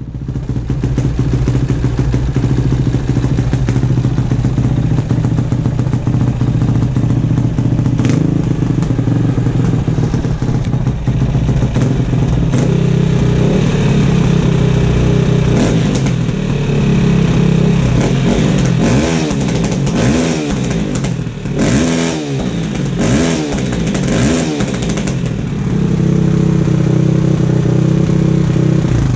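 KTM 450 EXC dirt bike's single-cylinder four-stroke engine idling, then revved in several quick throttle blips, each rising and falling, before settling back to idle.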